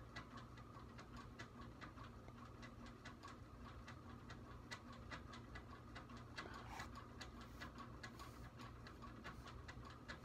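Near silence: faint, quick, regular ticking over a low, steady room hum.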